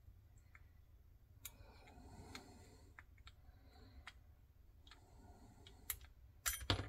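Faint, scattered clicks and light scraping of a lock pick touching the pins inside a Master Lock 417 padlock's keyway under light tension, with a few sharper clicks near the end.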